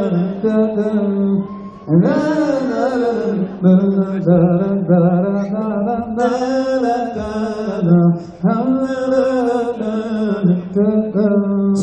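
Live nasheed singing: long held, winding vocal notes in several phrases, with brief breaks between them.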